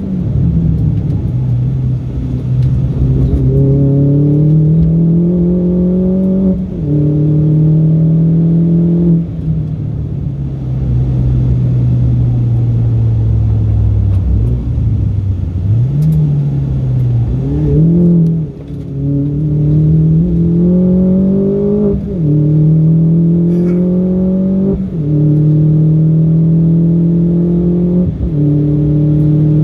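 Mini Cooper R56 John Cooper Works turbocharged 1.6-litre four-cylinder engine heard from inside the cabin while lapping a track. The engine note climbs as it pulls through the gears and drops sharply at each upshift, several times over. About halfway through it sinks and wavers through a slow corner, then climbs again.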